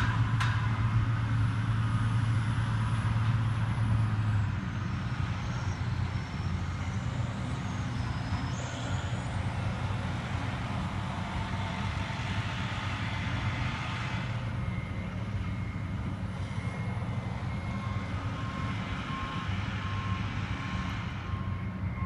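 Heavy construction machinery running steadily in a low hum, louder for the first few seconds and then lower. In the last few seconds a backup alarm beeps at an even pace.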